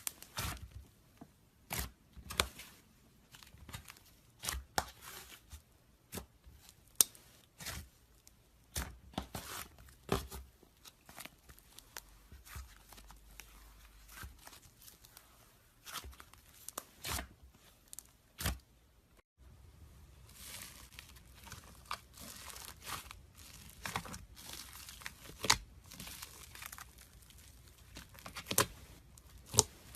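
Slime being squeezed, stretched and poked by hand, making irregular sticky clicks, pops and tearing crackles. About two-thirds of the way through the sound breaks off briefly and carries on with a different background.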